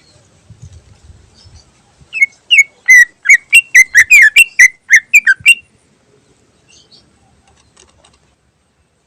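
Green leafbird (cucak ijo) singing a quick run of loud, sharp whistled notes, about four a second, starting about two seconds in and stopping abruptly after three and a half seconds.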